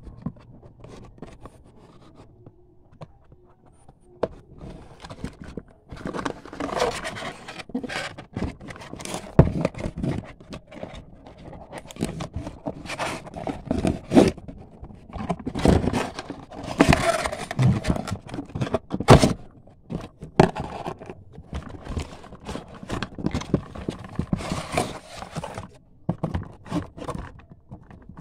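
Cardboard toy box being handled close to the microphone: irregular scraping and rubbing with sharp knocks, quiet for the first few seconds and then busy.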